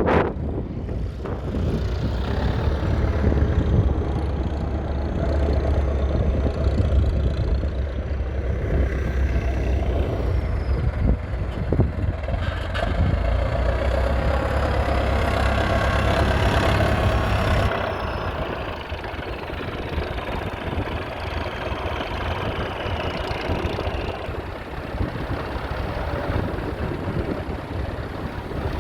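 Leyland 802's 3.8-litre four-cylinder diesel engine running steadily, its sound dropping in level about two-thirds of the way through.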